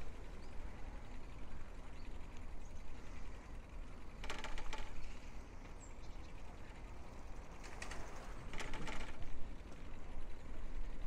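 Steady low rumble of a bicycle ride, with three short bursts of rapid clicking: about four seconds in, then twice more near eight seconds.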